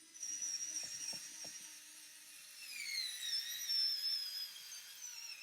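Cordless drill-driver running with a high, wavering motor whine, driving a screw, with a few sharp clicks about a second in; the whine is loudest a little past the middle.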